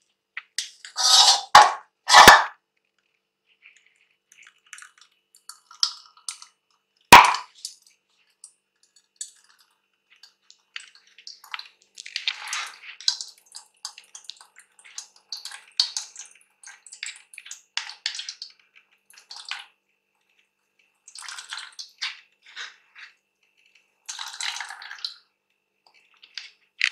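Steel kitchen utensils clattering, with two loud clanks near the start and one sharp knock about seven seconds in, then a spoon scraping again and again as it presses ground mint and coriander paste through a plastic strainer into a steel bowl.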